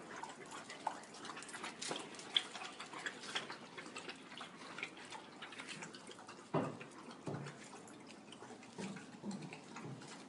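Scattered light clicks and scuffs of dogs' claws and paws on a hard tiled floor. About six and a half seconds in there is a short, louder low sound, with a softer one just after.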